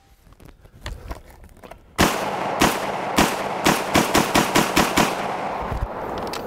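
MKA 1919 semi-automatic 12-gauge shotgun firing about ten shots in rapid succession, starting about two seconds in and coming faster toward the end, each report echoing into the next. The run of shots empties its 10-round extended magazine.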